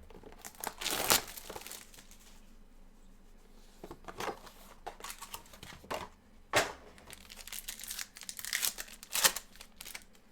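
Plastic packaging crinkling and tearing in several short bursts as a box of trading cards is unwrapped and opened by hand.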